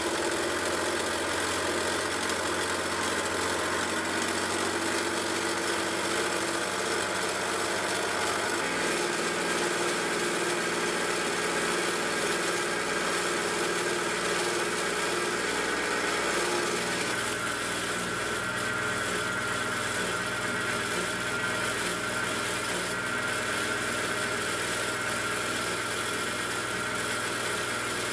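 Face mill on a Sieg benchtop milling machine cutting down the side of a mild steel bar: a steady motor whine with cutting noise. The tone shifts twice, about 9 and 17 seconds in.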